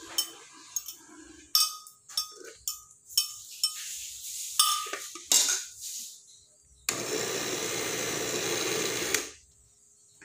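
Clicks and clinks against the glass jar of an electric blender, then the blender motor runs steadily for about two and a half seconds and cuts off, blending a thick mash of saba bananas that is hard to blend.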